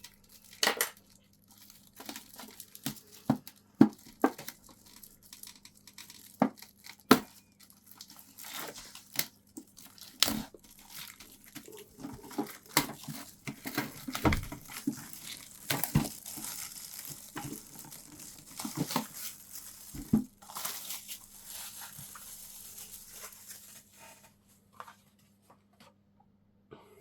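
Plastic wrapping being torn and crinkled off a metal Pokémon TCG collector chest tin, with many sharp clicks and knocks as the tin and its contents are handled.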